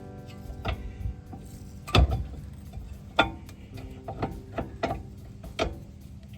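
Irregular metallic clicks and knocks of brake pads and caliper parts being handled and fitted during a rear brake pad change, the loudest knock about two seconds in. A struck metal part rings briefly in the first second.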